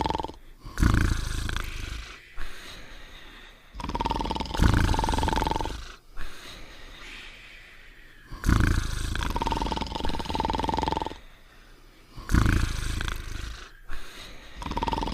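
Cartoon dogs snoring: a loud, low rumbling snore alternates with a held whistling note. The cycle repeats about every four seconds, with breathy pauses in between.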